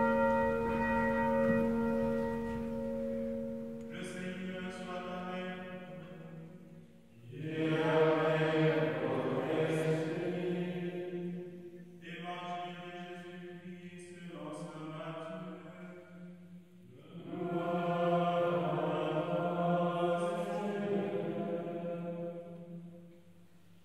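Liturgical chant sung by a group of voices at mass, in phrases a few seconds long, quieter phrases alternating with louder, fuller ones. It fades out near the end.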